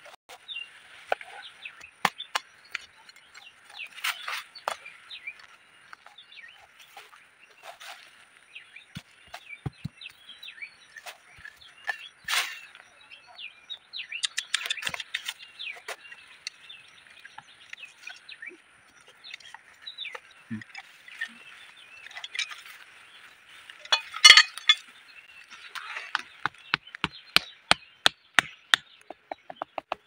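A machete scraping and chopping in dry soil, with birds calling continuously in the background. Near the end a hammer drives a bamboo stake into the ground in quick, regular knocks, about three a second.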